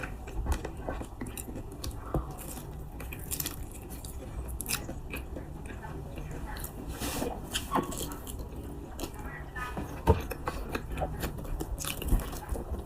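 Close-up eating sounds of someone chewing durian flesh, with scattered mouth smacks and small clicks and a sharper knock about ten seconds in.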